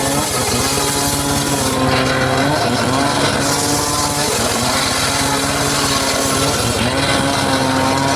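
Homemade circular saw ripping teak wood. Its drive runs steadily, and the pitch sags and recovers every couple of seconds as the blade takes the load, with a hiss of cutting in stretches.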